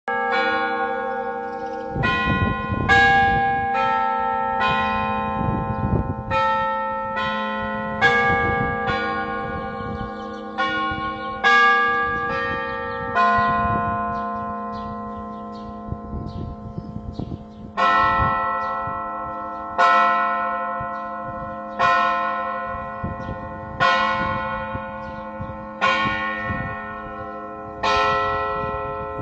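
Church bells ringing: several bells of different pitches struck in quick, overlapping succession for the first dozen seconds, then after a short lull a bell tolling steadily about once every two seconds, each stroke ringing on as it fades.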